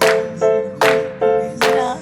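Background music: a repeating pattern of struck notes with a sharp attack every 0.4 seconds or so.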